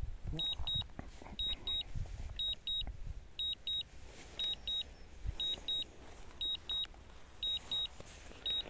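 High-pitched double beeps, one pair about every second: the DJI Phantom 3's return-to-home alert from its controller while the drone flies itself home. Faint low knocks and rumble sound underneath.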